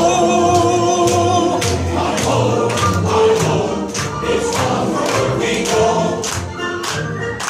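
Ride soundtrack playing through the dark mine scene: a group of voices singing over music, joined about two seconds in by a steady beat of sharp strikes, about two a second.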